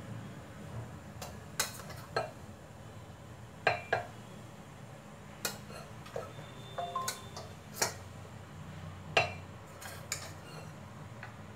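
A metal spoon clinking and scraping against a stainless-steel mixer jar and a steel bowl as damp oat powder is scooped out, in irregular sharp clinks about once a second over a low steady hum.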